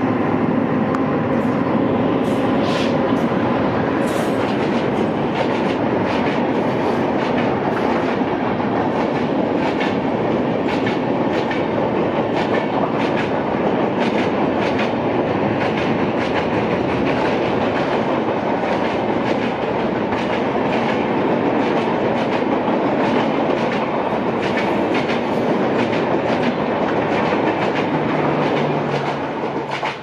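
Electric-hauled passenger train of air-conditioned coaches passing close across a girder bridge. Its wheels clatter steadily over the rail joints in a rapid run of clicks.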